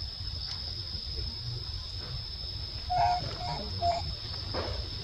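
Baby macaque giving three short squeaky calls about three seconds in, a call for its mother. A steady high whine and a low rumble run underneath.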